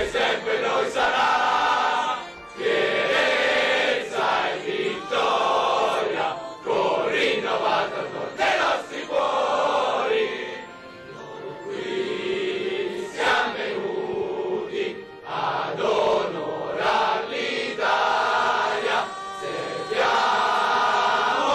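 A large group of soldiers, men and women together, singing a military song in unison, in phrases of a second or two with short breaks between them.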